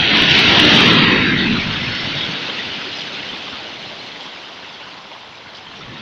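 Sea surf on a pebble beach: a wave breaks loudly just after the start, and its foam washes up the shore, fading slowly over several seconds. The next wave starts to break near the end.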